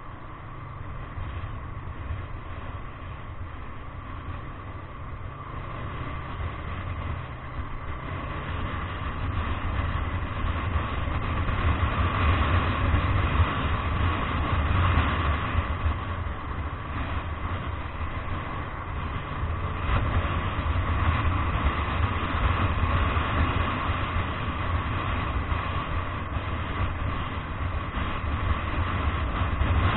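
A vehicle driving along a road: steady engine and road noise that grows louder over the first dozen seconds as it picks up speed, then holds level.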